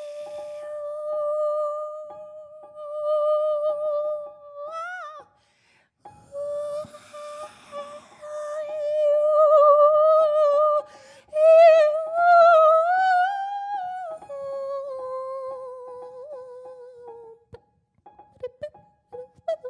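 A woman's wordless voice hums a long steady note into a microphone. After a short break she holds wavering notes that rise and then glide slowly downward. Near the end only a few short, scattered sounds from an open upright piano are left.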